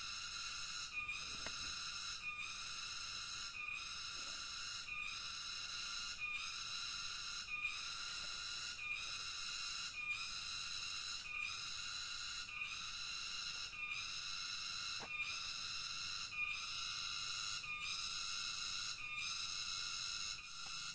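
Night insect calling in the forest: a high, shrill buzz made of several stacked tones, broken by short gaps about once every 0.8 s in an even rhythm.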